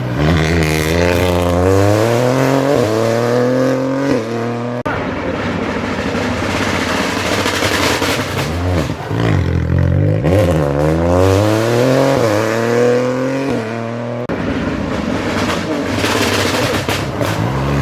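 Rally cars accelerating hard on a special stage, engine pitch climbing through each gear and dropping at every upshift. Three passes follow one another with abrupt cuts between them.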